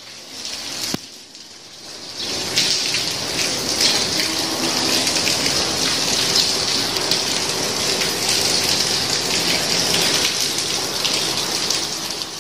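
Rain falling steadily on floodwater and wet paving, growing louder about two seconds in, after a single sharp click about a second in.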